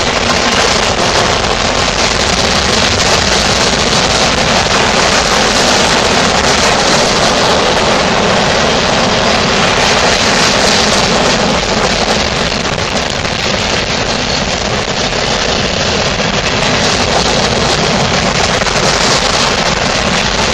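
Freight cars of a passing train, tank cars and boxcars, rolling by close at hand: a loud, steady noise of steel wheels on the rails. It eases slightly about halfway through.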